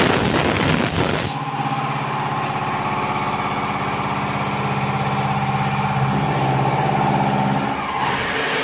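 CNC vertical machining centre running: a rush of noise for about the first second, then a steady machine hum of several tones that shifts slightly about six seconds in and eases near the end.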